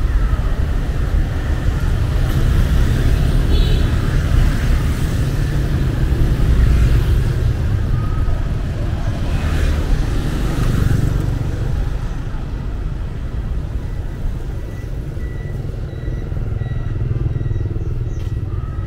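Street traffic, mostly motorbikes and cars passing. Engines run over a steady low rumble, and the noise swells twice as vehicles go by close, about a third of the way in and again just past halfway.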